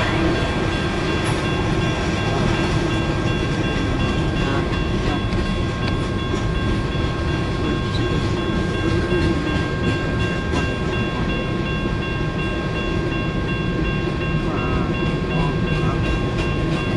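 Long mixed freight train's cars rolling steadily past a grade crossing, a continuous low rumble of wheels on rail with a few faint, steady high-pitched tones over it.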